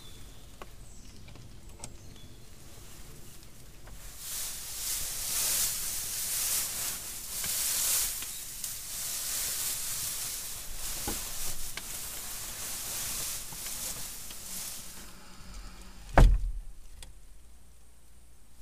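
Dry hay rustling and crackling as it is gathered and spread by hand, starting a few seconds in and stopping about fifteen seconds in. Shortly after, a single sharp knock.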